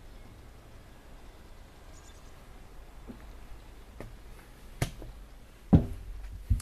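Quiet outdoor background, then about four knocks and thuds in the last few seconds, the loudest a heavy low thud near the end: footsteps and bumps of someone stepping in through a chalet's doorway onto its floor.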